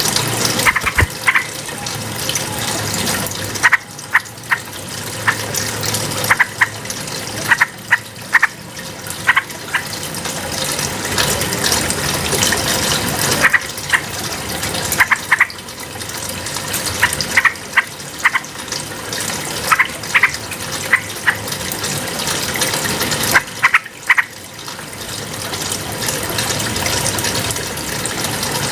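Yellow-vented bulbul (trucukan) giving short, bright bursts of notes in quick clusters every couple of seconds, over a steady rushing sound like running water.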